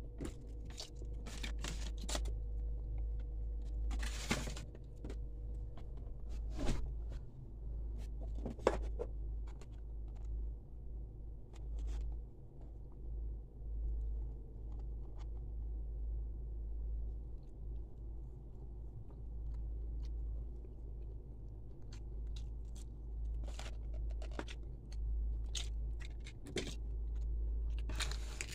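Fast-food paper bag crinkling and food containers being handled and set down, in scattered short rustles and knocks over a steady low hum.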